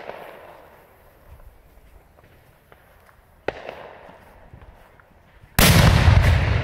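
Three firecracker bangs. A sharp crack comes right at the start and a second about three and a half seconds in, each fading off. A much louder blast comes near the end and rings on as it dies away.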